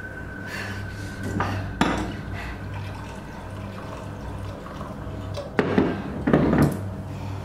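Water poured from a glass pitcher into a drinking glass, with knocks of glass set down on a wooden counter, the loudest near the end.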